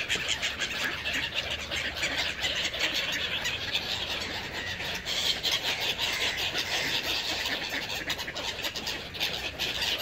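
A large flock of feral pigeons and gulls crowding in to be fed: a busy, continuous din of wings flapping and birds calling.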